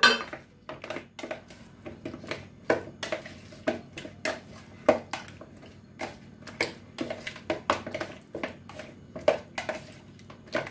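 A hand squishing raw chicken pieces through a thick, wet marinade in a ceramic bowl: irregular wet squelches and slaps, about two a second. At the very start, a ceramic plate clinks down on a stone counter.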